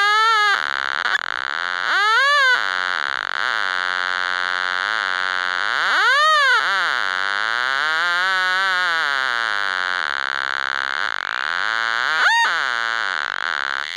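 Sound feedback from a handheld DIY laser rangefinder prototype: a buzzy electronic tone that changes pitch with the measured distance. It slides up and down the whole time, with sharp rises to a high peak and back about two, six and twelve seconds in.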